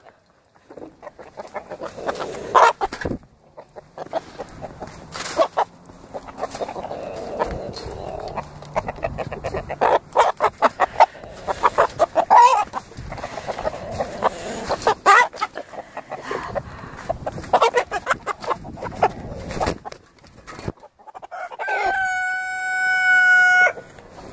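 Chickens clucking with short irregular calls, mixed with scuffling and knocks close to the microphone. Near the end a rooster crows once, a single held note of nearly two seconds.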